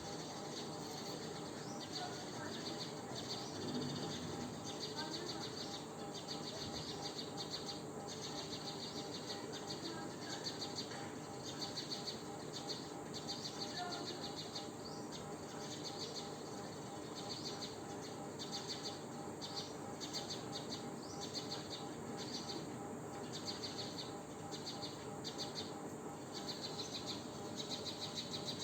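Insects chirping in rapid, pulsing runs, over a faint steady hum.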